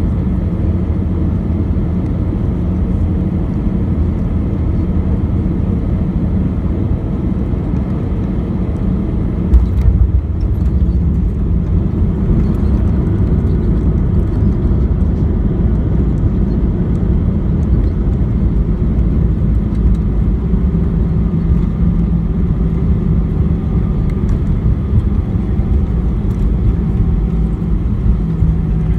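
Airbus A320 cabin noise heard from a window seat during landing: a steady low rumble, then a sudden thump about a third of the way in as the wheels touch down, followed by a louder rumble of the aircraft rolling out on the runway.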